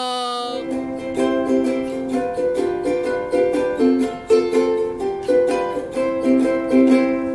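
aNueNue aNN-MCK ukulele, with a koa-laminate soprano-size body and a concert neck, being played. Chords are strummed in a steady rhythm, starting about half a second in.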